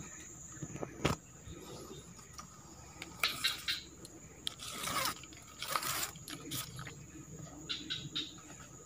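Leaves and stems rustling and crackling in short bursts as the fishing rod and a hand push through dense undergrowth, over a steady high, thin forest-insect drone.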